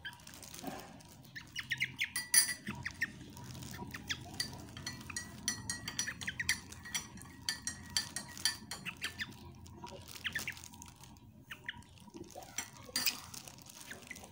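Metal teaspoon stirring tea in a glass, clinking repeatedly against the glass sides.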